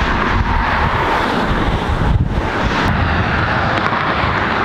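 Wind buffeting the microphone: a steady, loud rush with a low rumble underneath.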